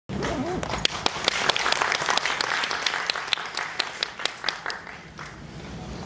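Audience applauding, the clapping thinning out and dying away about five seconds in.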